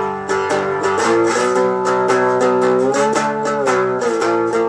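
Guitar strummed in ringing chords through a homemade 2.5-watt amplifier card driving an 8-inch Dean Markley speaker in an old Arvin electric-heater cabinet, with a clean tone.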